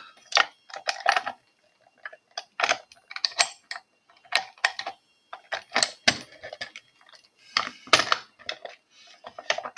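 Irregular metal clicks and clacks as a padlock is handled and set into position, with short quiet gaps between them.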